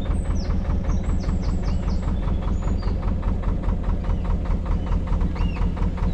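Narrowboat's diesel engine running steadily under way, with an even, rapid thud of several beats a second. Birds chirp faintly over it.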